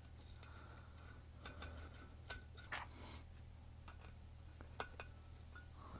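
Faint, scattered small metal clicks and ticks of a hex key turning a button-head screw into the rotor hub spacer on a D400 wind generator's shaft, about half a dozen over a few seconds, over a steady low hum.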